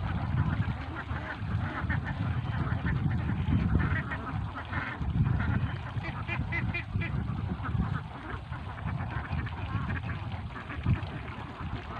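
A flock of domestic itik ducks quacking and calling in many short, overlapping calls. A low, uneven rumble runs underneath.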